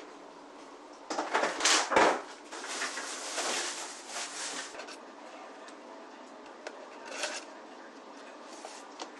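Household objects being handled: a few knocks and clatter about a second in, about two seconds of rustling, then scattered light taps.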